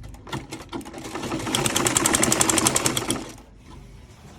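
Sewing machine stitching: a few slow single stitches, then running fast and evenly for about two seconds before stopping suddenly.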